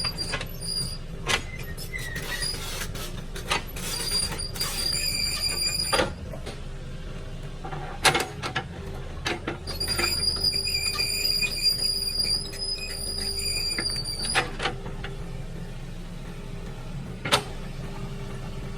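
Excavator at work among stones: a steady engine drone with sharp knocks and scrapes of the bucket against rock, and a high whine that comes in twice for a few seconds at a time.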